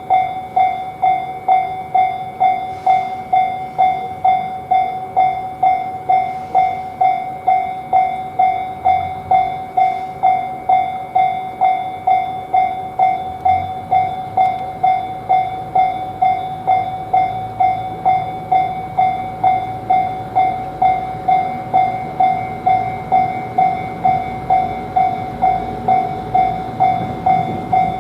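Japanese level-crossing warning bell ringing its 'kan-kan' alarm in an even rhythm, about two clangs a second. Under it a train's low rumble builds from about ten seconds in and grows louder near the end.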